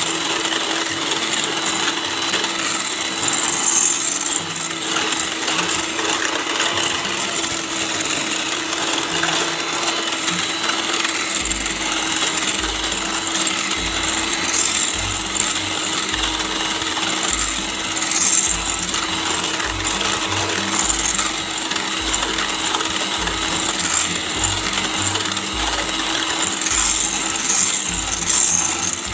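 Electric hand mixer with a balloon whisk attachment running steadily, a constant motor whir as the whisk beats whipped cream in a bowl toward stiff peaks.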